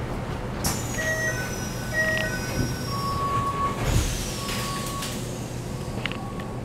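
Inside a stationary Keikyu New 1000 series commuter train: a two-note electronic chime sounds twice, then single short beeps, over the steady low hum of the standing car. Two short air hisses, each trailing into a high falling whistle, come about a second in and again about four seconds in.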